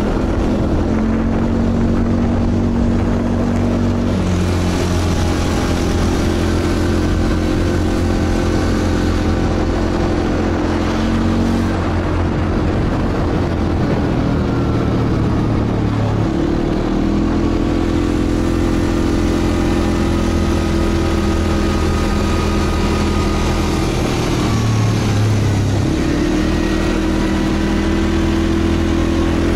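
Quad bike (ATV) engine running under way, heard from the rider's seat, with a constant rush of road and wind noise. Its pitch steps down and back up several times as the throttle eases and opens, dropping around 4 and 12 seconds in and rising again around 17 and 26 seconds in.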